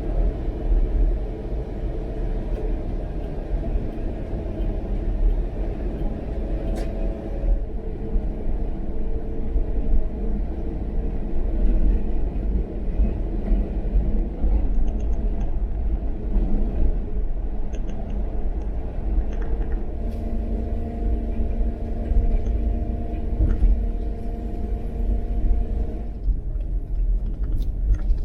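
A car on the move: a steady low rumble of road and engine noise, with the engine's hum shifting pitch a few times.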